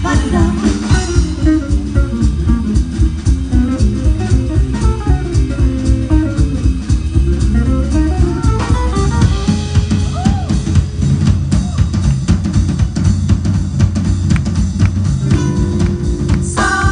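Instrumental break from a small live swing band: a drum kit keeps a steady beat under a plucked upright double bass and electric guitar. Near the end, the singers' voices come back in.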